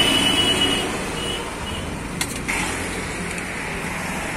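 Steady road traffic going past, with a few high beeps in the first couple of seconds and one short sharp knock just after halfway.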